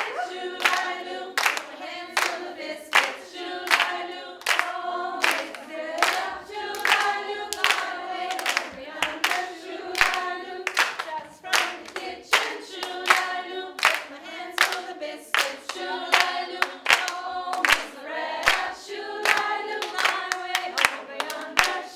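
A group of women singing together while clapping their hands to a steady beat.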